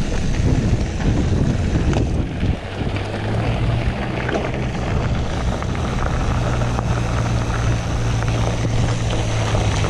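Wind buffeting the microphone and mountain bike tyres rolling on a dirt trail while riding. From about three seconds in, a steady low hum runs underneath.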